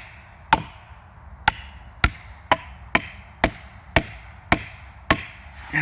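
Repeated hammer blows driving a felling wedge into a tree's cut, about two strikes a second, nine in all. Each blow helps open the crack to tip the tree.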